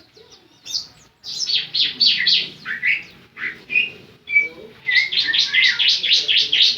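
Bar-winged prinia (ciblek) singing in quick runs of high, sweeping chirps. It pauses briefly near the start and sings a dense, fast run through the second half.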